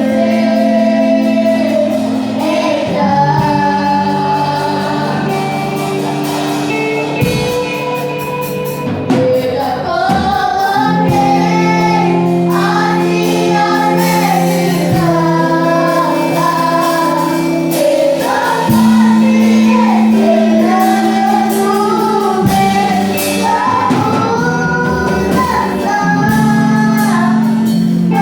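Female voices singing a worship song over an accompaniment of long held chords.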